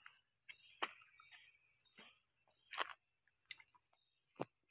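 Footsteps in sandals on loose stones and gravel: a few sharp crunches at uneven intervals. Under them runs a steady high-pitched insect buzz.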